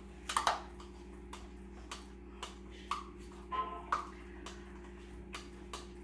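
A spoon scraping and tapping Greek yogurt out of a plastic cup: irregular soft clicks and scrapes over a faint steady hum.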